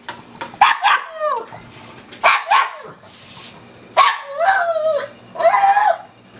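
Elderly pug barking and squealing insistently for her food: a string of about five loud, high yelps roughly a second apart, each sliding down in pitch. She is deaf and, as the owner puts it, can't tell how loud she's barking.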